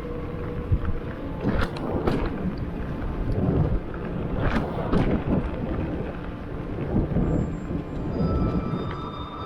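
Giant Stance mountain bike rolling fast over a rough dirt trail: a steady rumble of the tyres on the ground, with the bike clattering and knocking sharply over bumps several times.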